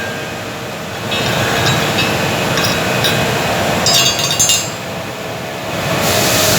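Arc welding on steel pipe: a steady crackling hiss that dips and swells, with a quick cluster of sharp metallic clinks about four seconds in.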